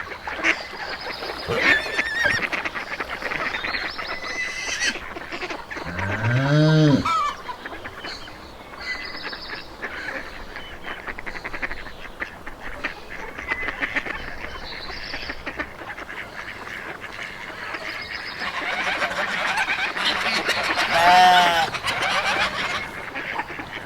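Farmyard waterfowl calling: one loud call about six seconds in and more near the end, over a steady noisy background.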